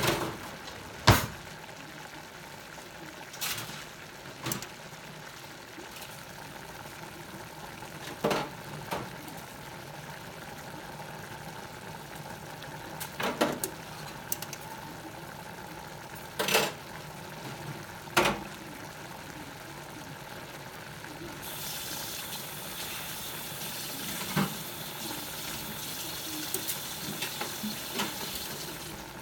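Soy-marinated chicken and vegetable stir-fry sizzling and bubbling steadily in a stainless steel pan as its liquid cooks down. Several sharp clicks and knocks are scattered through it. A brighter hiss comes in a little past two-thirds of the way through and lasts almost to the end.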